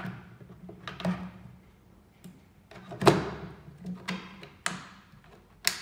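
Tablet guide being set onto and positioned on an aluminium counting head: about five sharp knocks and clatters of the parts meeting, the loudest about three seconds in.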